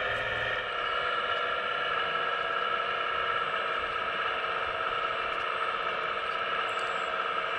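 Hydraulic pump of a 1:15 scale RC Hitachi ZX135US model excavator whining steadily as the boom, arm and bucket move to dig.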